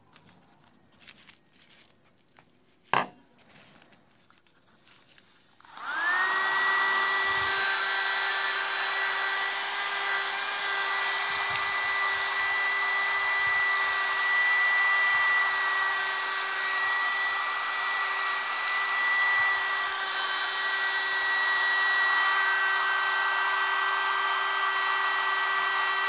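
A sharp click about three seconds in. Then, about six seconds in, the USB-powered mini vacuum cleaner's small motor starts, spinning up in a fraction of a second to a steady high whine with airflow hiss, and runs on evenly.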